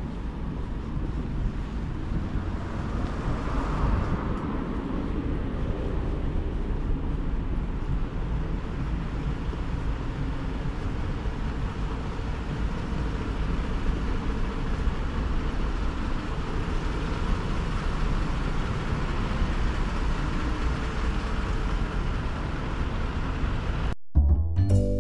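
Steady low rumble of vehicle traffic with city street noise. It cuts off abruptly near the end, and marimba-like music begins.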